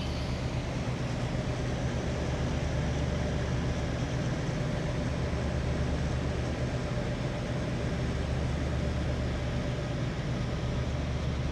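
Truck engines idling: a steady low hum.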